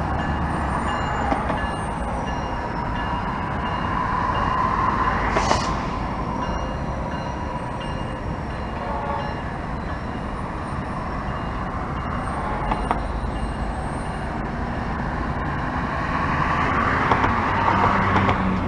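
Steady rumble of road traffic and a rail yard from an overpass. Two vehicles pass close, swelling and fading, about five seconds in and again near the end.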